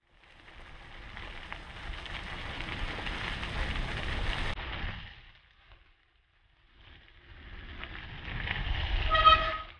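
Two rushes of passing-vehicle noise, each building up and fading away, separated by a short gap of silence; the second ends in a brief horn toot about nine seconds in.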